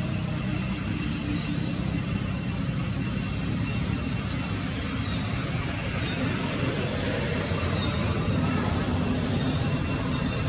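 Steady low rumbling background noise, with faint short high chirps now and then.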